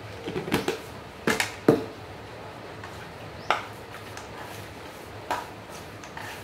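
Chopsticks clicking and knocking against a metal pan as pieces of fish are turned in their seasoning. Several taps come close together at first, the loudest just before the two-second mark, then single taps every couple of seconds.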